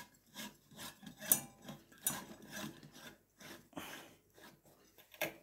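Edison E40 screw cap of a 250 W mercury vapour floodlight bulb being twisted by hand into its lampholder: a run of short, irregular scrapes and grating rubs as the threads turn in, until the bulb sits tight.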